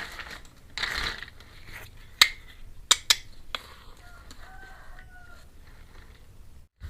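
Small plastic toy kitchen pieces and their packaging handled: a brief rustle about a second in, then four sharp clicks and taps, followed by a few faint short pitched squeaks.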